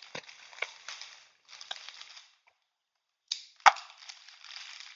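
Clear plastic shrink wrap being cut and pulled off a cardboard box: crinkling rustles with a few small clicks, and one sharp snap a little past halfway.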